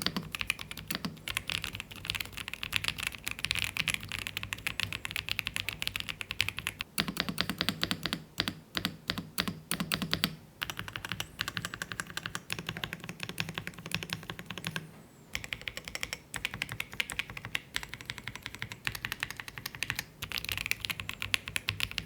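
Typing on a Keychron V1 Max gasket-mount mechanical keyboard with Gateron Jupiter Banana switches: a fast, continuous patter of key clacks, with a brief pause about two-thirds of the way through.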